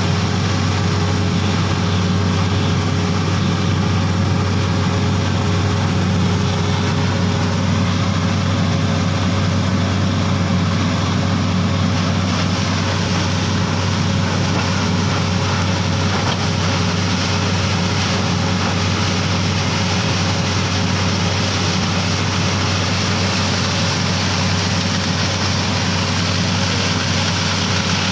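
Borewell drilling rig running steadily: a loud, unchanging engine drone with a few steady tones, mixed with the rushing hiss of air and water blowing out of the borehole around the drill pipe.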